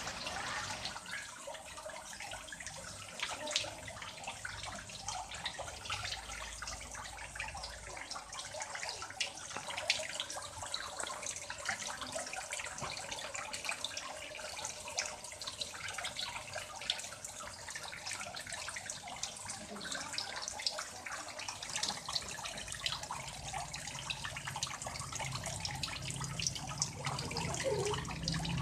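Water running steadily from a homemade two-tier filter back into a tarpaulin fish pond, splashing and trickling on the pond's surface.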